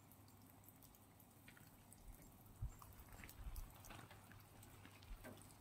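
Near silence: faint outdoor background with scattered light ticks and a few soft low thumps, the strongest about two and a half seconds in.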